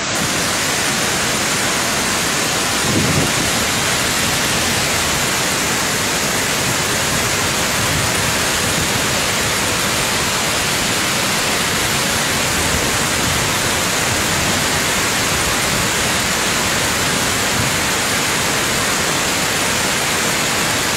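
Tarbela Dam's outlet jets discharging: a loud, steady rush of water and spray, with a brief low thump about three seconds in.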